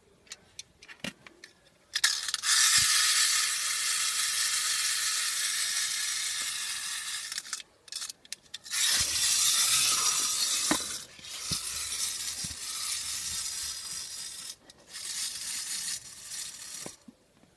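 Clockwork spring motor of a wind-up tin toy train: a few clicks of the key, then the gear train whirring loudly as the spring runs down. It stops and starts again several times.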